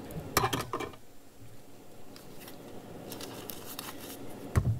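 Clicks and clatter from handling tools at a workbench as a soldering iron is set back in its stand and hookup wire is pulled off a reel. There is a burst of clicks about half a second in, lighter quick ticks a little after three seconds, and a single knock near the end.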